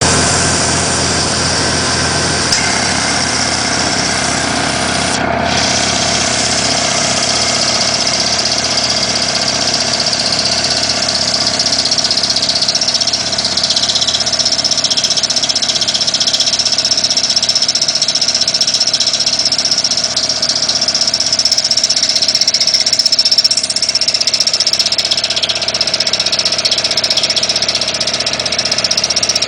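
Car engine idling with a steady high-pitched squeak, which is put down to the compressor. The squeak grows stronger partway through.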